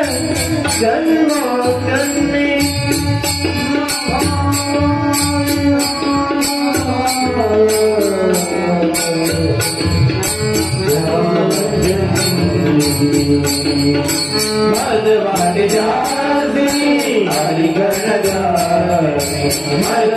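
Devotional bhajan singing: a man's voice over steady held instrumental notes, with small hand cymbals striking a steady beat.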